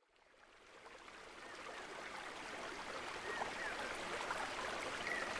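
Ambience of flowing river water fading in from silence and growing steadily louder, a rushing, even sound with a few faint short high notes over it.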